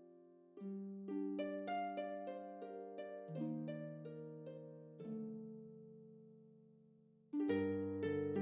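Background music: a gentle melody of plucked, harp-like notes. A held note fades out about five seconds in, then the music comes back louder with lower bass notes near the end.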